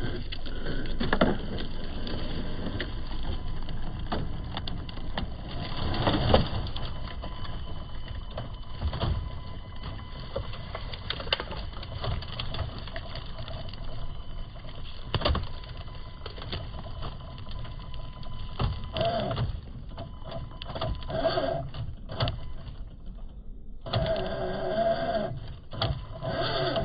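Radio-controlled six-wheel trail truck driving, its small electric motor and gears whining, with repeated knocks and clatter from the chassis and tyres. A steadier whine comes in near the end.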